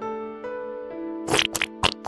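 Background music: held notes stepping to a new pitch about every half second, with a few sharp percussion hits in the second half.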